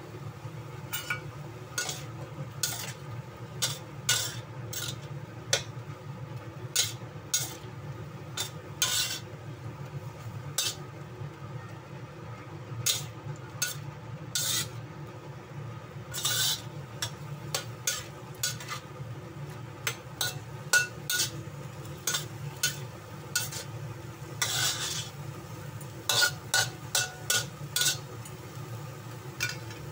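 Stir-frying in a wok: a utensil scrapes and taps irregularly against the pan as opo squash and ground pork are tossed, with a few longer scraping strokes and a light sizzle. A steady low hum runs underneath.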